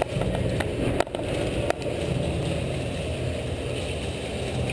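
Movement noise from an airsoft player walking in gear: a steady low rumble, with sharp clicks about a second in and again shortly after.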